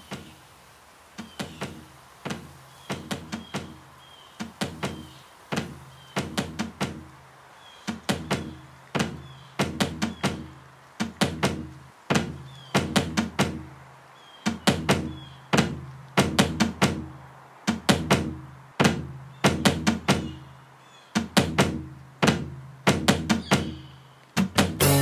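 Percussive beat of sharp knocks and deep thuds in quick clusters, about one cluster a second, growing denser, over a steady low hum.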